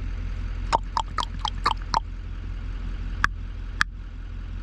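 Ravens calling: a quick run of about six short calls in the first two seconds, then two single calls later on, over a steady low hum.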